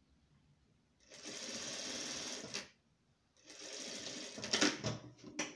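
Industrial lockstitch sewing machine running, stitching layers of cotton fabric strips onto a nonwoven base. It sews in two steady runs of about a second and a half each with a short pause between, followed by a few sharp clicks near the end.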